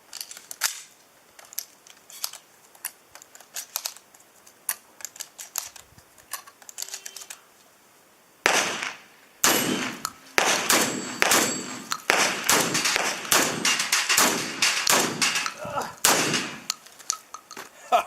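Shotgun fire on steel targets: fainter scattered shots at first, then from about eight and a half seconds a fast string of loud shots with the clang and ring of pellets striking steel plates, ending when the gun runs empty.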